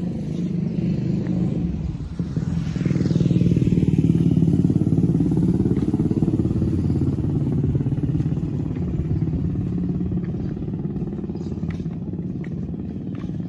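Motorcycle engine running as it passes close, loudest about three seconds in, then fading slowly as it rides away down the road.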